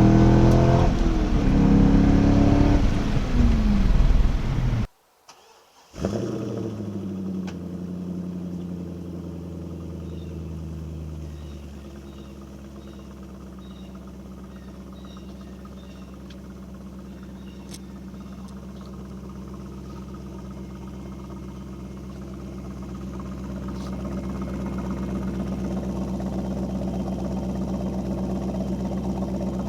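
Corvette engine revving through a loud exhaust, the pitch falling back after each rev. After a brief cut, it settles into a steady idle that grows a little louder near the end.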